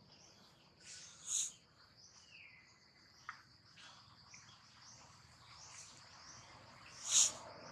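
Outdoor ambience of a steady high insect buzz with scattered bird calls, including two short, sharp, high chirps that stand out, one about a second in and one near the end.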